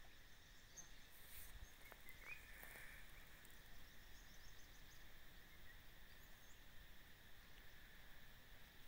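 Near silence: a faint steady drone of insects, with a short chirp about two seconds in.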